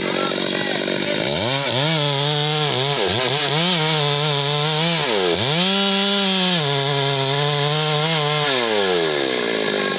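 Stihl two-stroke chainsaw cutting into the base of a teak trunk, its engine revving up and down several times and holding high for a while in the middle, then dropping back to idle near the end.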